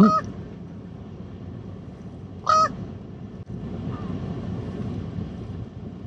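Common raven giving short caws twice, right at the start and about two and a half seconds in, over a steady low rumble.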